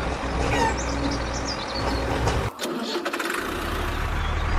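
An engine running steadily with a low rumble, briefly cutting out a little over halfway through, then running again.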